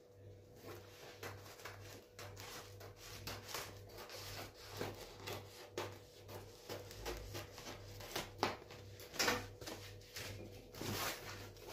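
Scissors cutting through a sheet of non-adhesive aluminium-foil shelf liner: a faint run of irregular snips and rustles of the sheet, a little louder in the second half, over a faint steady hum.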